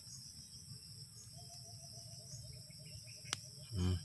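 Steady chirping of crickets in a rapid even pulse, joined about a second in by a lower, evenly pulsed insect trill. Near the end comes a sharp click and then a short, louder low thump.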